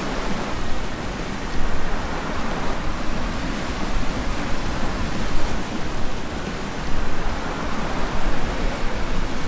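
Sea surf and wind on the shore rocks: a steady rushing noise that swells and eases a little in loudness.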